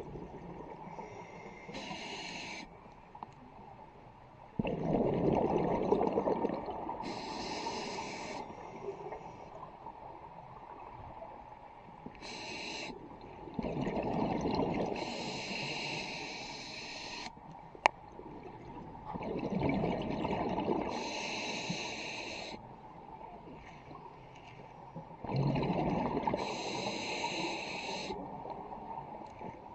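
Scuba diver breathing through a regulator underwater: a hissing inhale through the demand valve, then a rumbling gush of exhaled bubbles, four breaths about six seconds apart. A single sharp click comes partway through.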